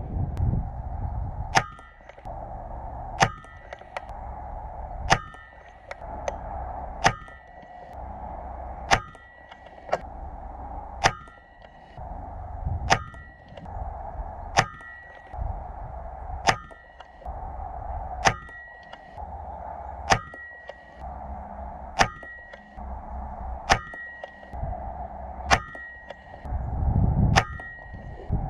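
Air rifle firing slugs in a steady string, one shot about every two seconds, about fifteen in all. Each shot is a sharp crack followed by a brief metallic ring.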